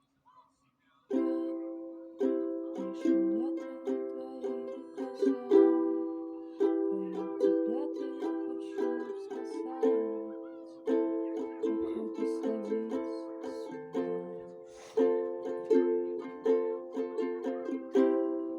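Ukulele playing a tune of plucked and strummed chords, starting about a second in, each chord ringing out and fading before the next.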